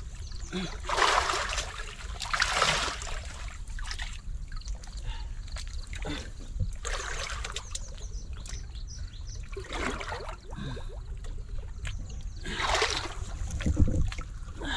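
Muddy pond water splashing and sloshing in irregular bursts every few seconds as people wade and grope with their hands under the surface for fish, over a low steady rumble.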